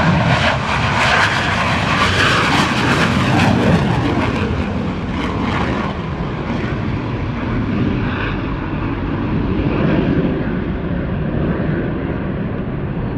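CF-18 Hornet's twin General Electric F404 jet engines at full power just after takeoff: a loud roar with crackling as the jet passes. Over the second half the crackle and the highs fade, leaving a steady low rumble as the jet climbs away.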